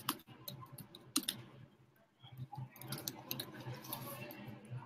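Irregular clicks and taps of typing on a computer keyboard, a few scattered keystrokes at first, then a denser run of typing in the second half.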